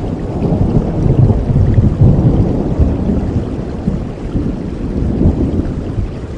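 Heavy rain, with a deep rolling rumble underneath that swells about a second in and slowly eases off.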